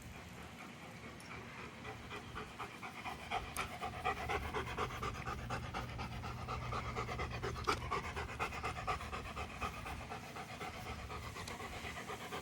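German Shepherd panting in quick, even breaths, growing louder about two seconds in: the dog is out of breath from play.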